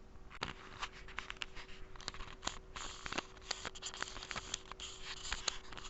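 Irregular rustling and sharp clicks of handling noise over a faint steady hum, as picked up by a cheap mini body camera's built-in microphone.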